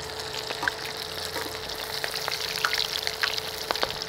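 Panko-breaded calamari rings deep-frying in hot oil in a steel pot: a steady bubbling sizzle with scattered pops and crackles, and a faint steady hum underneath.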